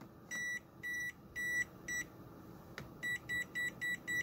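Non-contact voltage detector of a Kaiweets HT208D clamp meter beeping as it picks up voltage from a live mains plug and cord. The beeps are short and high-pitched, about half a second apart at first, then come faster and shorter about three seconds in as the reading strengthens.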